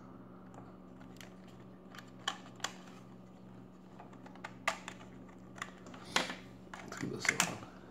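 Scattered plastic clicks and taps from a toy quadcopter's handheld controller being handled, its sticks and buttons worked, with a busier, louder run of clicks and rustling about six seconds in.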